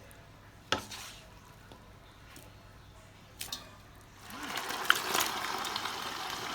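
Kitchen cooking sounds at a pot: a sharp utensil knock about a second in and a double knock near three and a half seconds, then a steady hiss from about four seconds in as liquid or food goes into the pot.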